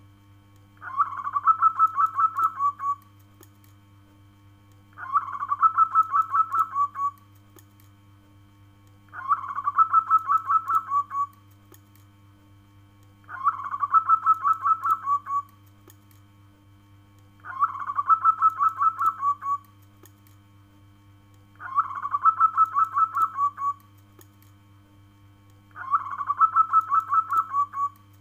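Zebra dove (perkutut) singing its cooing call: a quick run of short, bright coo notes lasting about two seconds, repeated seven times at even intervals of about four seconds. A faint steady low hum lies underneath.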